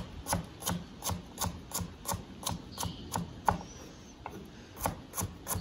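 Chef's knife slicing carrots into rounds on a wooden cutting board: steady knocks of the blade against the board, about three a second, with a short pause about four seconds in.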